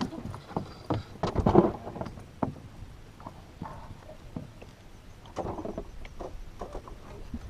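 Scattered knocks and handling noises on a fishing boat, with a cluster of louder knocks about one and a half seconds in and a few more near the end.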